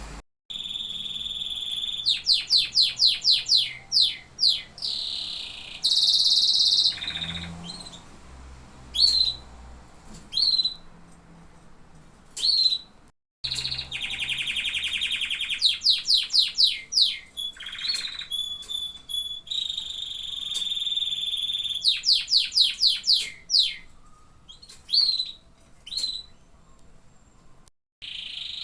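Domestic canary song: fast trills of rapidly repeated high notes and held rolling tours, broken up by short upslurred chirps and pauses. The sound cuts out briefly twice, about halfway through and near the end.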